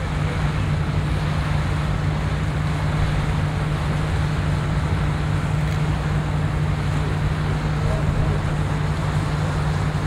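Engine of a research ship under way, droning steadily with a constant low hum under an even rushing noise of wind and water.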